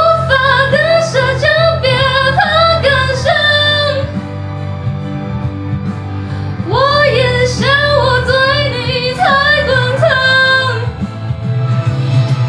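A woman singing a Chinese pop song over a backing track, in two sung phrases with a few seconds of accompaniment alone between them and again near the end.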